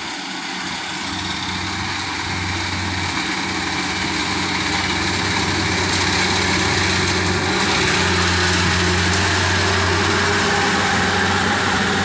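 Japanese rice combine harvester running while it cuts paddy: a steady engine and machinery hum that grows louder as it approaches.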